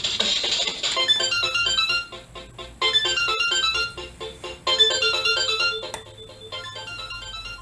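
Seiko RAIDEN NR443K alarm clock playing one of its loud synthesized electronic melody alarms: a quick tune of short electronic notes that starts about a second in and repeats as a short phrase.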